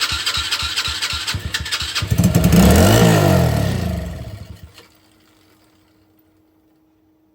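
A 110cc four-wheeler's single-cylinder engine runs briefly on gas dribbled down its intake. It chugs steadily, revs up hard about two seconds in, pitch rising then falling, and dies away just before the five-second mark as the fuel is used up.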